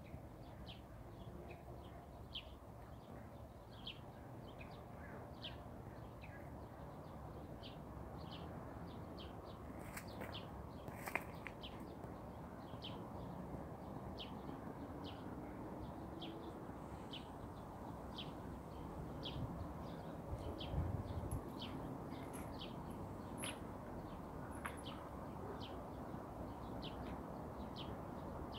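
A small songbird chirping repeatedly, short high chirps about once a second, over a steady low background hum. There are a couple of sharp clicks about a third of the way in and a low thump about two-thirds in.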